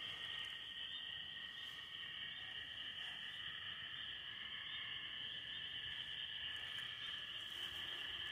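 Steady chorus of crickets in the grass, a continuous high trill with a fainter lower one beneath it.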